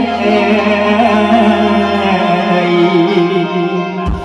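Live Thai Isan band music: a held, slowly wavering melody over sustained chords with no beat. Drums come in right at the end.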